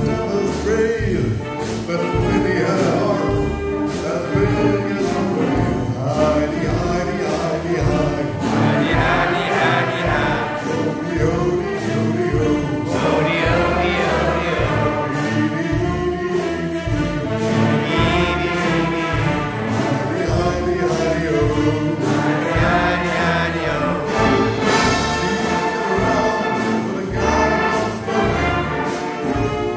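A male singer sings through a handheld microphone, accompanied by a wind band playing to a steady drum beat.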